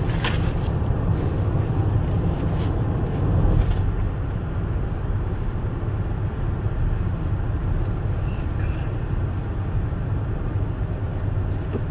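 Steady rumble of a car heard from inside the cabin, with a few brief rustles of a plastic bag in the first few seconds.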